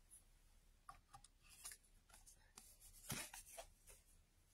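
Faint rustles and light taps of paper being handled: a watercolour card lifted off a stencil on an embossing machine's cutting plate. The clearest rustle comes about three seconds in.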